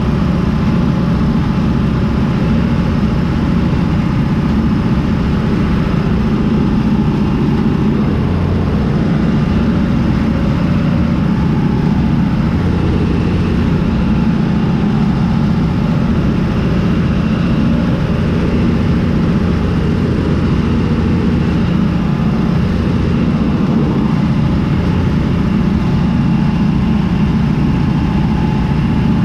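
John Deere 3350 tractor's diesel engine running steadily under load, heard from inside the cab, together with the Zmaj 222 trailed corn picker working the corn rows.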